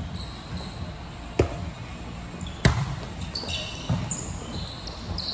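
Three sharp thuds a little over a second apart, with short high squeaks in the second half.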